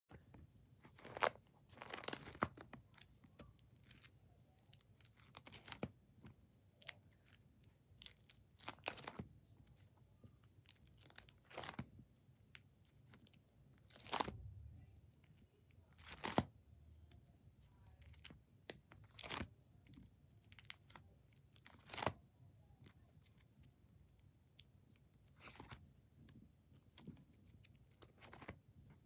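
Clear plastic pocket pages of a trading-card binder being flipped over one after another, each turn a short, sharp crinkling crackle, coming at uneven intervals of a second or two.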